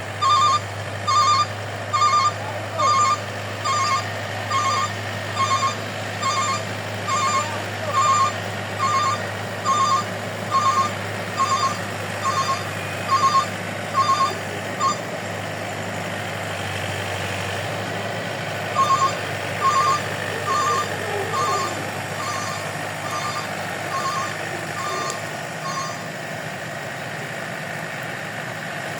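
Reversing alarm beeping a little over once a second over the steady hum of a rice combine harvester's engine; the beeping stops for a few seconds about halfway, then resumes for several seconds before stopping again.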